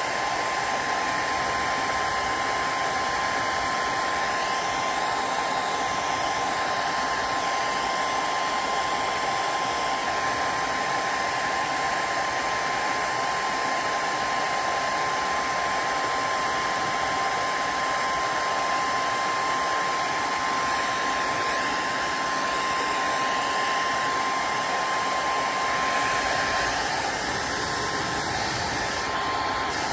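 Electric heat gun blowing steadily, a continuous rush of air with a thin steady whine that stops near the end.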